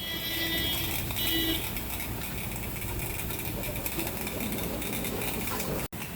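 Steady street and traffic background with a vehicle horn honking twice in the first second and a half. The sound cuts out for an instant near the end.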